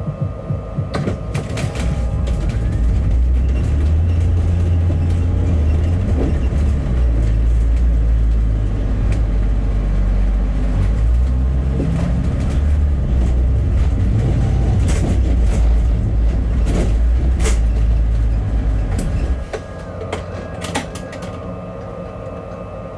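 A bus engine running under way, heard from inside the cabin: a heavy low rumble with scattered rattles and knocks. About nineteen seconds in the rumble drops off sharply and the sound goes quieter.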